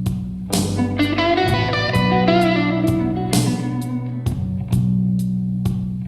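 Instrumental music with no singing: a plucked guitar melody over steady bass notes and a light ticking beat about twice a second, played back through a bookshelf loudspeaker for a sound test.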